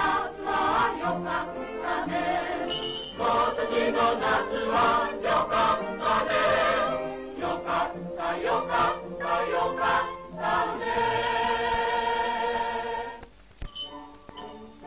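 Film soundtrack music with a choir singing. About thirteen seconds in it drops to quieter, lighter music.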